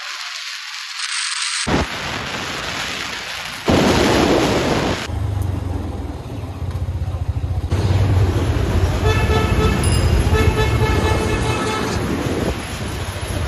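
Motorcycle riding along, with wind rushing over the microphone and the engine running steadily underneath. Past the middle a vehicle horn honks several times in short blasts.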